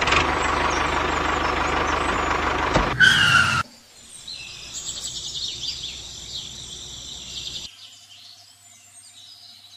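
Toy tractor's small motor and gears whirring steadily for about three and a half seconds, ending in a brief squeal. Birds then chirp for a few seconds before it goes nearly quiet.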